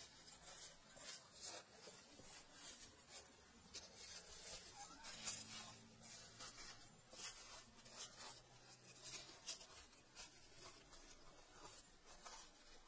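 Faint, irregular scratching and crumbling of dry sandy soil around a burrow, with small clicks of loose grains.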